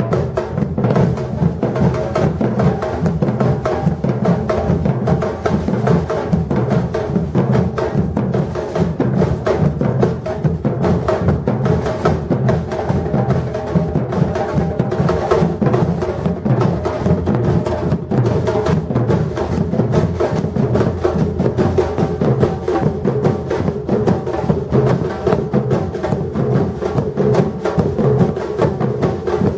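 Batucada drum ensemble playing a continuous, dense rhythm: deep drums underneath and rapid strokes of higher drums on top, without a break.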